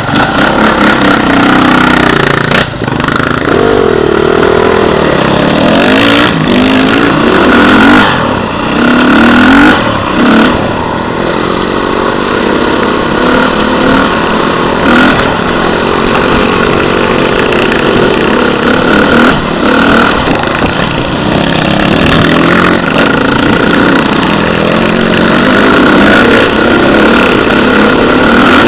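Beta RR 450 enduro motorcycle's four-stroke single-cylinder engine revving up and down under way on a dirt trail, with knocks and rattles as the bike goes over bumps.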